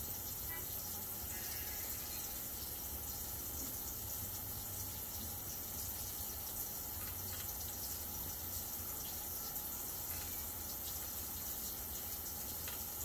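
Steady background hiss over a low hum, with a few faint clicks here and there.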